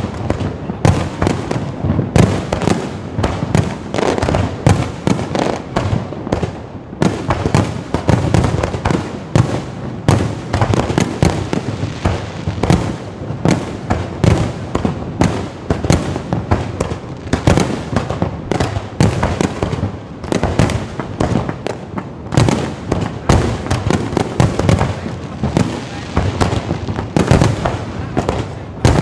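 A long string of firecrackers going off: a continuous, rapid run of sharp cracks and bangs.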